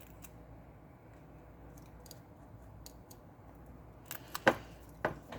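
Faint scattered clicks and taps of small phone parts and tools being handled during reassembly, over a low steady hum, with a few sharper, louder clicks about four to five seconds in.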